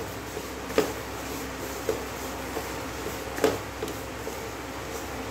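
Wooden spatula stirring grated bottle gourd and sugar in a steel pan, with a few sharp knocks of the spatula against the pan over a steady low hum.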